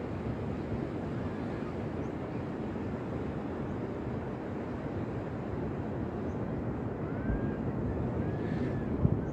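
Ocean surf washing on a beach, a steady low rush of waves with wind on the microphone. A brief low thump comes near the end.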